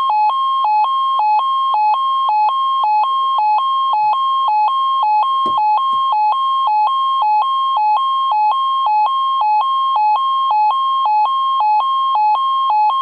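Midland ER10VP weather alert radio sounding its built-in two-tone hi-lo alarm, alternating steadily about twice a second, triggered by a NOAA Weather Radio Required Weekly Test. A brief low knock about five and a half seconds in.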